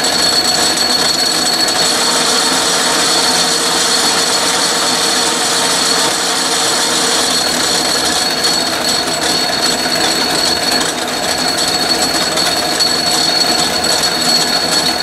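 Atlas metal lathe running steadily under power feed on a thread-cutting pass, a single-point tool cutting an internal thread in a steel bore. The running makes an even mechanical noise with a steady high tone.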